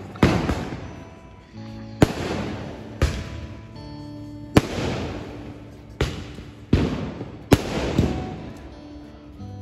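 Aerial fireworks bursting overhead: about eight sharp bangs at irregular intervals of half a second to two seconds, each fading out over a second or so.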